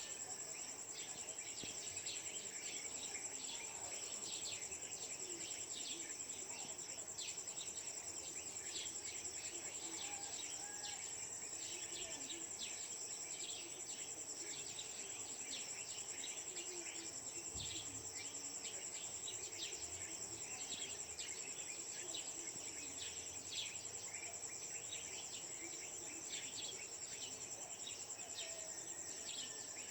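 Dawn ambience: a continuous high-pitched insect trill, with many short bird chirps over it.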